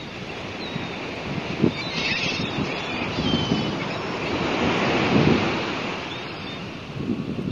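Wind buffeting the microphone outdoors: a steady rushing noise with low gusts that swell and ease, strongest about five seconds in.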